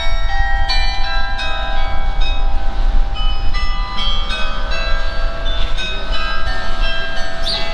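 Carillon bells played from a church tower: a tune of struck bell notes, about two a second, each ringing on beneath the next, over a steady low rumble.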